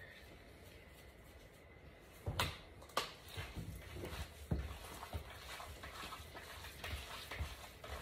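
Two sharp knocks, about two and a half and three seconds in, as a seasoning canister is set down on the counter. Then ground turkey is squished and worked by hand in a bowl, with soft, irregular squelching.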